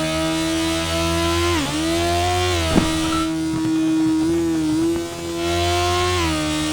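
Sport motorcycle engine running hard at high, fairly steady revs, with a quick dip and recovery in revs about a second and a half in.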